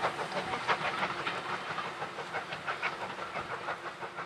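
Steam train running away down the line, a quick irregular clatter of wheels and rail noise that slowly grows fainter.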